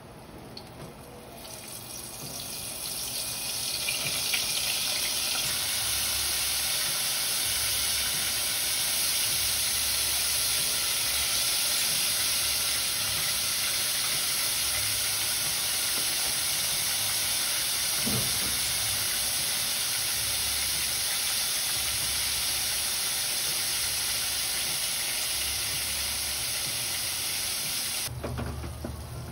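Flour-coated squid rings deep-frying in a saucepan of hot oil: a steady sizzling hiss that builds over the first few seconds as more rings go in, then falls away near the end.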